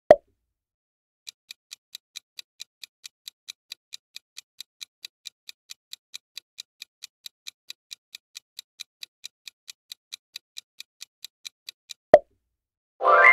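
Countdown-timer sound effect: clock-like ticking, about four or five ticks a second for roughly ten seconds. A short pop sounds at the start and another just after the ticking stops, and a ringing reveal sound begins right at the end.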